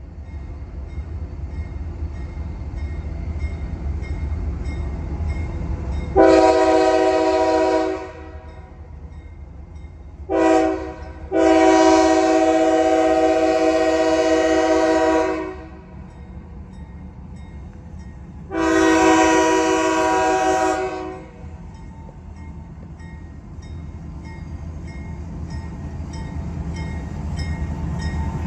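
A CSX GE Dash 9 diesel locomotive's multi-chime air horn sounds a grade-crossing signal: a long blast, a short one, then two more long blasts. Under it the locomotive's low rumble grows louder as it approaches, and a crossing bell rings faintly and steadily.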